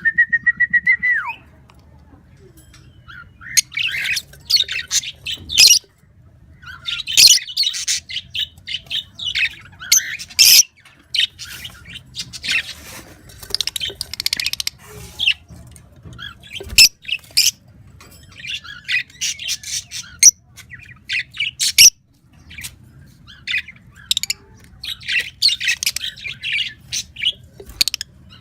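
Pet birds chirping and squawking in repeated bursts of short, high-pitched calls, with a brief held whistle at the start.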